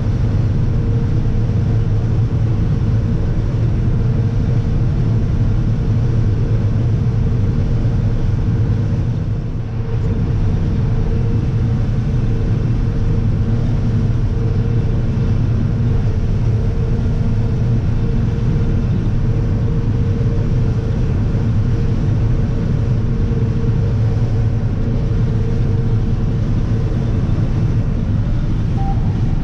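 Combine harvester running steadily while shelling corn, a continuous engine and machine drone with a brief dip about a third of the way through.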